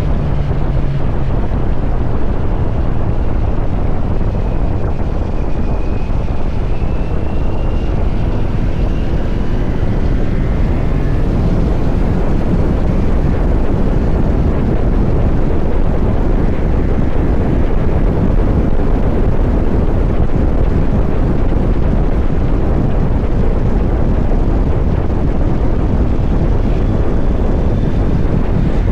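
Kawasaki Z900 SE's inline-four engine running through an SC Project CR-T exhaust while riding, heavily mixed with steady wind noise on the microphone.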